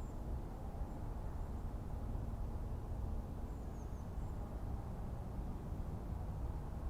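Forest ambience: a steady low rumble with a few faint, high bird chirps about halfway through.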